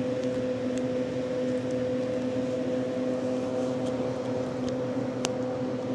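Steady mechanical hum with a low tone and its overtone over a soft background hiss, with a single faint click about five seconds in.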